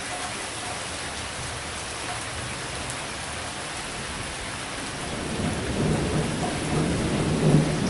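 Steady heavy rain falling, with a rumble of thunder building up over the last few seconds.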